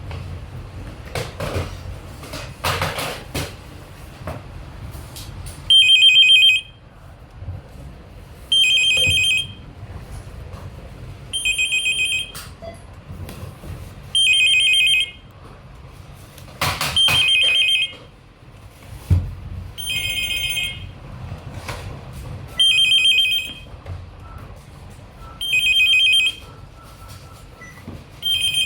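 A phone ringtone ringing: a high electronic ring about a second long, repeating roughly every three seconds, nine times. Before the first ring, a few clicks and knocks.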